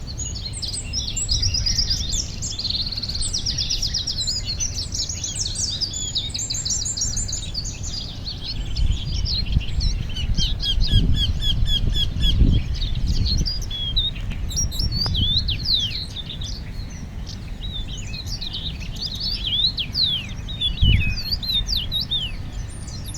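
Several small birds chirping and calling together: fast trilled runs and quick rising and falling whistles, many overlapping. Low rumbles swell up around the middle and again near the end.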